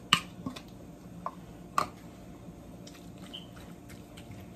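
A fork stirring and mashing canned tuna in a glass bowl: soft, wet squishing with a few sharp clicks in the first two seconds, the loudest near the end of that stretch.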